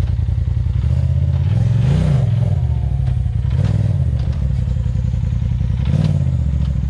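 Side-by-side UTV engine idling, with three short throttle blips that briefly raise and drop the revs while it is eased onto the rocks.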